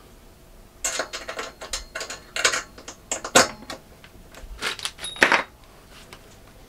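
Light clicks, taps and rattles of small metal parts being handled against a square steel-tube wall frame on a plywood floor, in several scattered clusters, with a brief faint metallic ring a little after five seconds.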